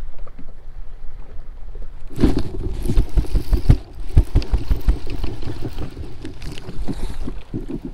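Wind buffeting the microphone over water lapping at a kayak. From about two seconds in come irregular low thumps and knocks of a rod, reel and line being handled close to the microphone.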